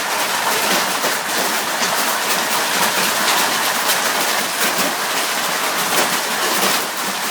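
Hail pelting down steadily: a dense, loud clatter of countless small hailstone impacts.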